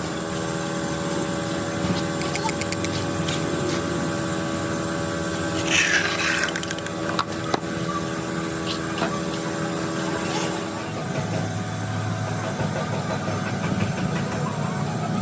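A machine running steadily with a constant hum, a short burst of hiss about six seconds in and a few light clicks.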